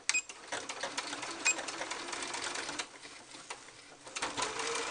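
Computerized sewing machine running a straight stitch through layered tulle and stretch fabric. It runs for nearly three seconds, drops back for about a second, then runs again near the end.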